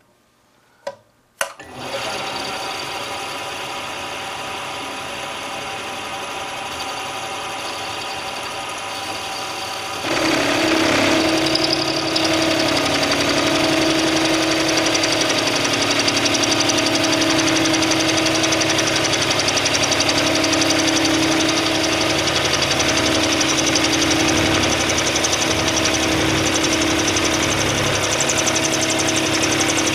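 Two clicks, then a vertical milling machine's spindle starts running. About ten seconds in, the roughing end mill, fed by hand, bites into the metal plate and the sound grows louder with a steady droning tone from the cut.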